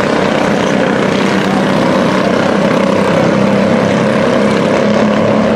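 Mini truck race engines running at speed around a paved oval, a loud, steady drone with no break.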